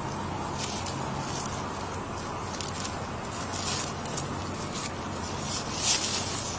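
Irregular scratchy rustling in short bursts, loudest near the end, over a low steady hum.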